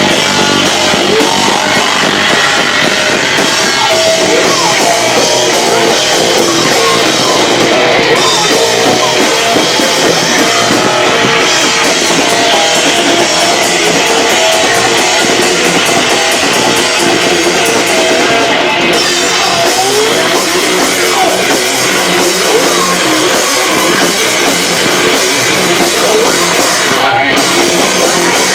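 Live rock band playing loud and without a break: drum kit and distorted electric guitar, overloading a camcorder's built-in microphone so the sound comes through harsh and crushed.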